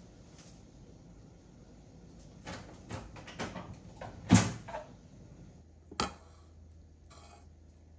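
A few short knocks and clatters of something being handled, the loudest about four seconds in, then a sharp click about six seconds in and a brief rustle near the end.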